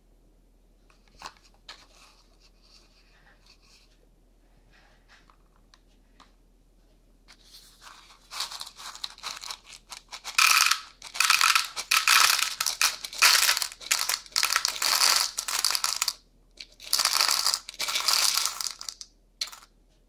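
A couple of light knocks about a second in. Then a pile of small gold-plated metal connector pins is poured from one plastic bowl into another, a dense metallic clatter in several pours that is loudest in the second half.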